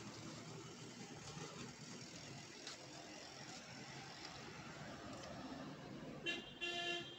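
Steady background noise of road traffic, with two short honks from a vehicle horn near the end, the second a little longer.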